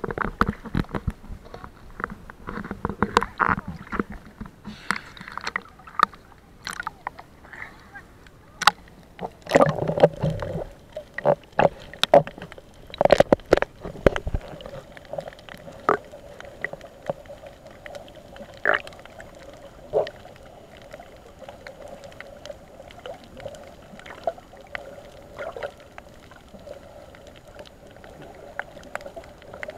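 Water splashing and knocking around a snorkeler's camera at the surface, with many sharp clicks and short bursts. About halfway through it settles into muffled underwater sound: a steady low hum with an occasional click.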